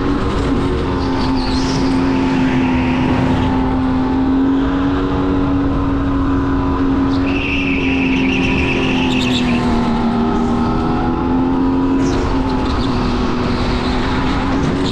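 Go-kart engine running at speed through a lap, its pitch dipping and rising gently through the corners. A higher squeal, typical of the kart's tyres sliding, lasts about two seconds halfway through.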